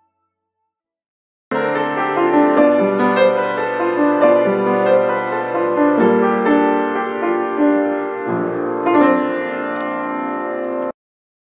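Piano music that starts about a second and a half in, with notes changing every half second or so, and cuts off abruptly near the end.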